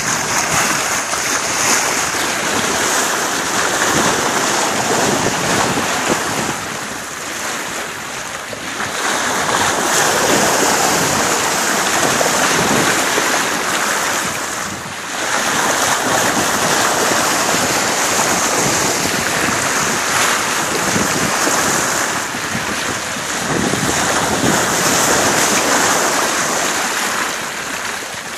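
Water rushing and splashing along a sailboat's bow as it moves through the sea, with wind buffeting the phone's microphone. The rush swells and eases every several seconds.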